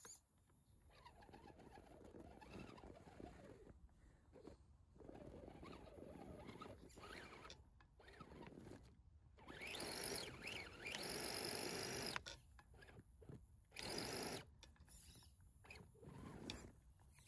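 Small electric motor and gearbox of a scale RC crawler whining, its pitch rising and falling as the throttle is worked, with the tyres churning through deep snow. It is loudest in a stretch about ten to twelve seconds in and again briefly at about fourteen seconds.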